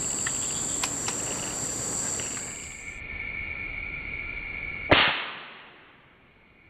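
A single sharp shot from a PCP air rifle about five seconds in, its crack fading away over about a second. Before it, insects buzz with a steady high tone.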